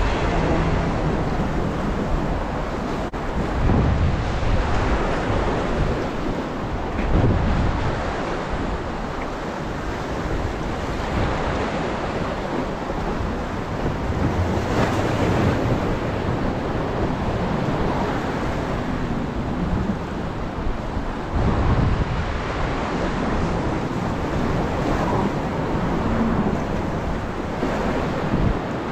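Sea water washing and breaking at the shoreline, with uneven gusts of wind rumbling on the microphone.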